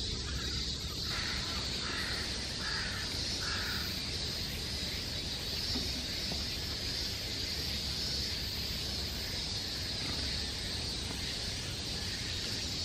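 Crow cawing several times in quick succession over the first few seconds, over a steady high-pitched drone.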